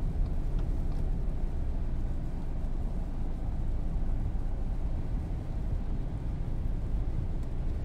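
Steady low rumble of a car driving on a wet highway in the rain, heard from inside the cabin: tyre and road noise with the engine underneath.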